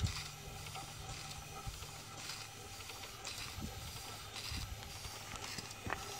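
Steam engine of a 3-inch scale twin-cylinder traction engine in steam, giving soft hissing puffs of steam about once a second over a faint low hum.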